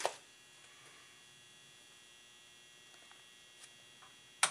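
Steady electrical hum with a thin high whine from a newly powered aircraft avionics panel. There is a sharp click at the start and another near the end, with a few faint ticks of panel buttons being pressed in between.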